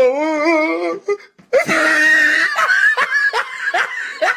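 A wavering, warbly voice held for about a second, then, after a short break, loud laughter in quick repeated bursts, as in a comedy laugh sound effect.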